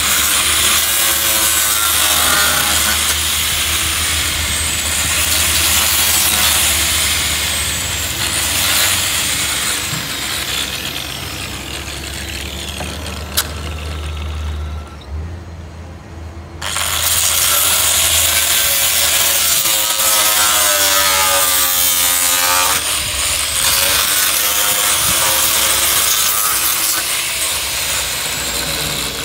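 Electric power sander running against the yacht's surface, its pitch wavering as pressure changes. It stops about halfway through and starts up again a second or two later.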